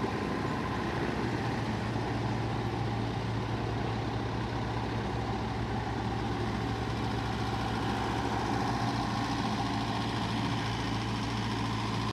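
Heavy construction vehicle's engine running steadily with a low, even hum, stopping abruptly at the end.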